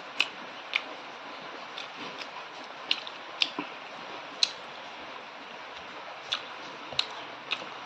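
A person chewing pork and rice close to the microphone, with lip smacks: about nine sharp, irregular wet mouth clicks over a steady background hiss.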